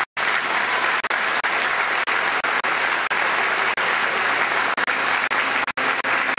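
Audience applauding steadily in a hall, with brief drop-outs to silence just after the start and near the end.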